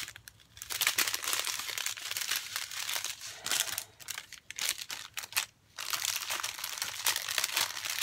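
Thin plastic bags crinkling as small packets of diamond-painting drills are handled and pushed into a clear plastic sleeve. The crackling pauses briefly about half a second in and again around five and a half seconds in.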